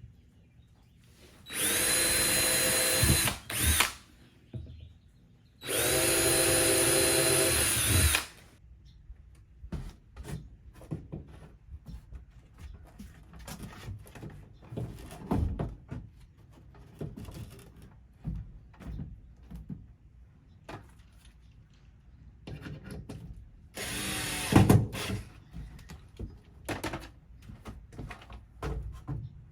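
Power drill driving screws into plywood wall panels: two steady runs of about two seconds each near the start. Scattered light knocks and clicks follow, with a brief louder burst of noise near the end.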